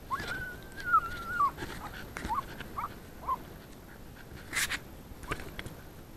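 A jagdterrier whining in excitement after flushing something: one long, high whine, then three short yelps.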